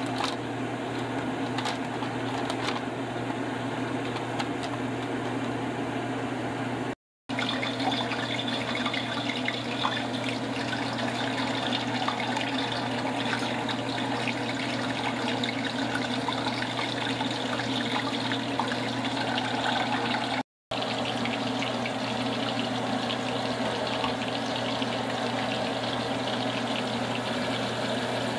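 Water sloshing as rice is washed by hand in a bowl, over a steady low hum. The sound cuts out for a moment twice.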